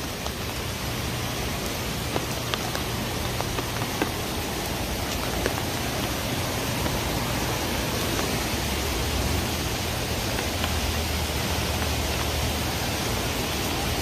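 Steady rushing noise of a flood-swollen creek running fast after a storm, mixed with falling rain, with a few light ticks scattered through it.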